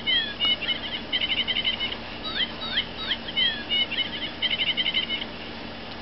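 Electronic birdsong from the sound box in the small plush bird on a Nature Walk Stitch plush toy, set off by pressing the bird. A string of sweeping chirps leads into a fast trill, and the whole pattern plays twice, stopping a little after five seconds in.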